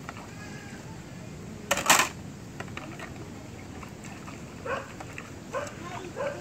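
Dishes being washed by hand in basins of water: plates and bowls knocking and clinking, with one louder burst of noise about two seconds in.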